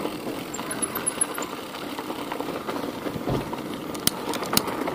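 Bicycle rolling over a rough dirt track: a steady crackle of tyres on grit, with a dull knock and a few sharp rattling clicks near the end.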